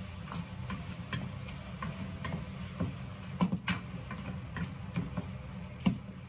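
Utensil knocking and scraping against a skillet as vegetables are stir-fried, irregular clicks over a steady low hum.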